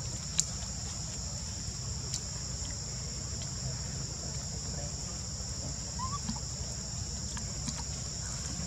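Steady high-pitched insect drone over a low steady rumble, with a few faint clicks and one short rising chirp about six seconds in.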